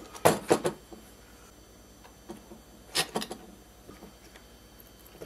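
A few sharp clicks and light knocks of small hardware and a 3D-printed assembly being handled on a wooden workbench, in a quick cluster just after the start and another about three seconds in.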